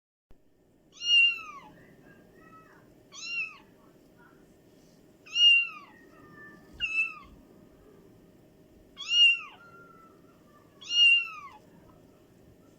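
A cat meowing: six short, loud meows about two seconds apart, each falling in pitch at its end, with softer short calls in between.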